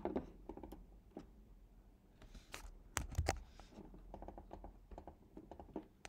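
Typing on a computer keyboard: scattered key clicks in short runs, with a few louder taps about three seconds in.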